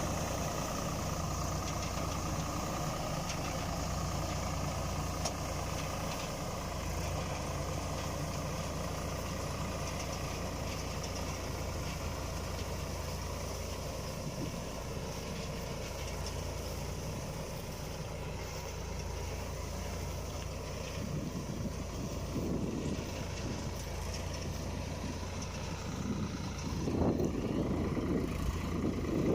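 Swaraj 744 FE tractor's three-cylinder diesel engine running steadily, growing louder near the end.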